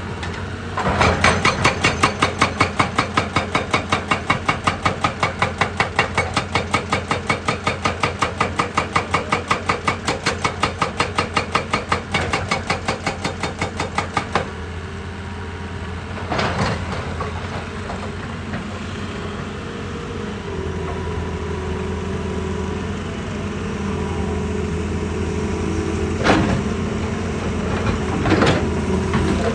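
Heavy machine hammering rock with fast, even blows, about four a second, which stop abruptly about halfway through. After that a diesel engine runs steadily, with a few separate knocks near the end.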